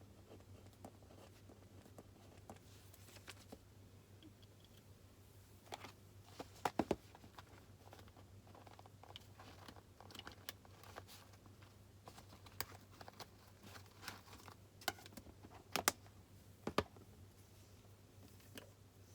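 Faint desk sounds of someone studying: scattered light clicks and taps of pen and stationery with paper handling, a few sharper knocks around a third of the way in and again near the end, over a low steady hum.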